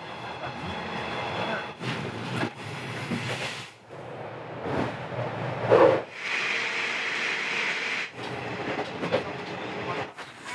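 A passenger train running on rails, heard from inside the train, in a string of short clips joined together so that the rumble and hiss change abruptly about every two seconds.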